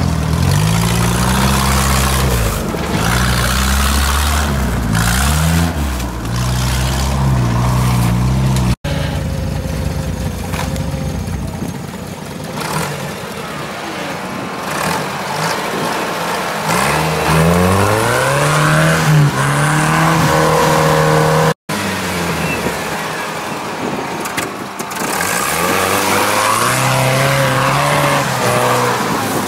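Engines of off-road UAZ and GAZ 4x4s revving up and down hard as they drive through mud and snow, the pitch rising and falling again and again. It is heard in three separate stretches, the middle one quieter at first before a long rise in revs.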